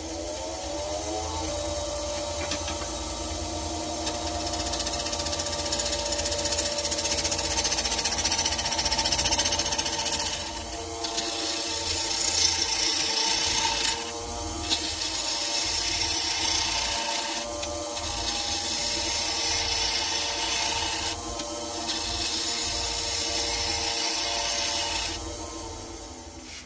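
Wood lathe running up to speed, its motor whine rising, then a turning tool cutting the face of an elm blank in about five long passes with brief pauses between, shavings hissing off. Near the end the cutting stops and the lathe's sound dies away.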